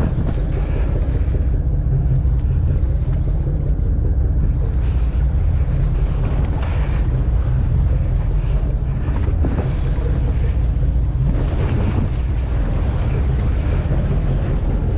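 Steady low rumble of wind buffeting the microphone on a boat at sea, mixed with the boat's running noise and the wash of the water.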